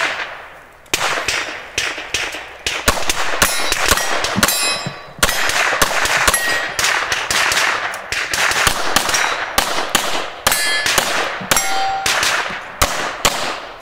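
Rapid strings of pistol shots with short pauses between them, several hits on steel targets ringing out with a clang.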